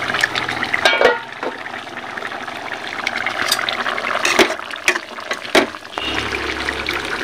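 A steady hiss of food cooking in a pan on the stove, with a few sharp metal clanks from an aluminium pot lid and utensils being handled.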